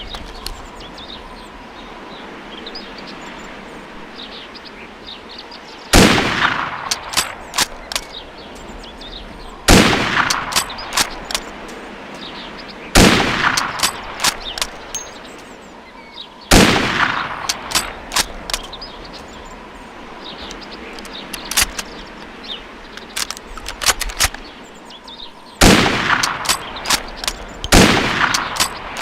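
U.S. Springfield rifle fired six times, a shot every three to four seconds with a longer pause in the middle. A string of sharp cracks trails off after each shot.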